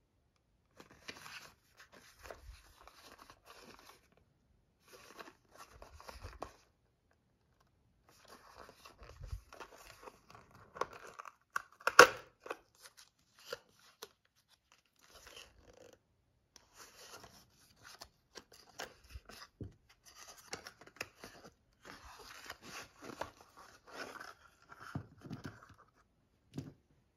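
Small paperboard cartridge box being handled and opened: intermittent scraping and crinkling of cardboard, with one sharp tearing crack about twelve seconds in as the end flap pulls open. More scraping and light knocks follow as the plastic cartridge tray slides out near the end.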